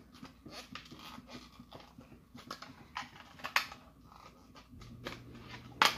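Light plastic clicks and creaks from flexible ribbed plastic gerbil tubes being bent and fitted together, with two sharper clicks, the louder one near the end.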